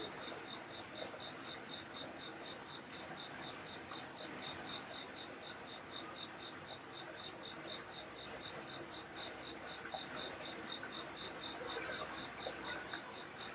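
A steady, even chirping, about four to five short high chirps a second, typical of a cricket, over a faint hiss.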